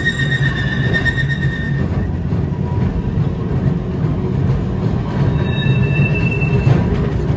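A-type tram running along the track, heard on board: a steady low rumble of wheels and running gear. A high wheel squeal fades out about two seconds in, and a briefer, higher squeal comes in near the end.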